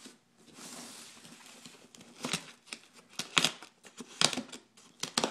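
Packing tape on a cardboard shipping box being cut and pulled open with a knife: a steady scraping rasp near the start, then four or five sharp crackling rips of tape and cardboard.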